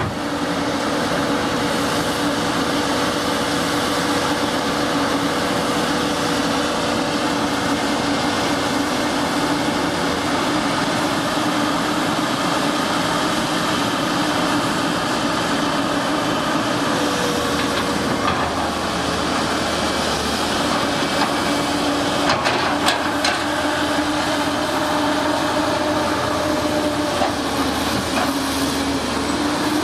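CAT 320C excavator's diesel engine running steadily under working load as the boom and bucket dig, with a thin steady whine over the engine note. A few sharp knocks come about three-quarters of the way through.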